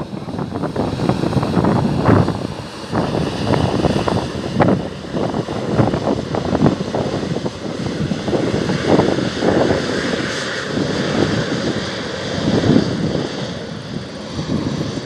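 Embraer E195 jet airliner's twin GE CF34 turbofans at take-off power, a steady high whine with a hiss, under loud irregular gusts of wind buffeting the microphone.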